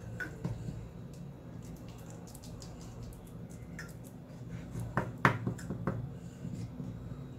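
Wooden spatula pressing and patting sticky coconut barfi mixture flat on a wooden board, with soft squishes and a few sharp taps of the spatula on the board about five seconds in.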